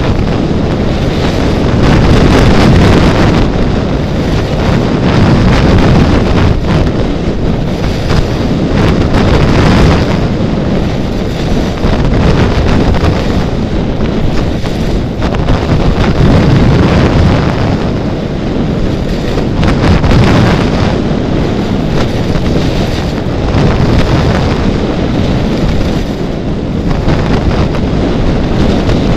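Loud wind buffeting the microphone of a skier's camera during a downhill run, swelling and easing every few seconds, with the scrape of skis over packed snow underneath.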